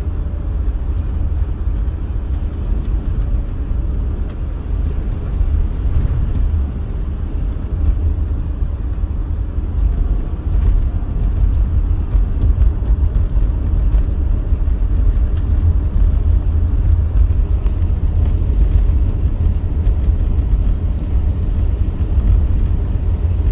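A car being driven on a road: a steady low rumble of engine and road noise with no marked change in pace.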